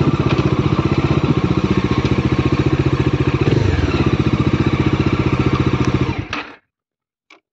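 Bajaj Dominar's single-cylinder engine running at low speed with an even pulsing beat, then shut off about six seconds in and dying away within half a second. A faint click follows near the end.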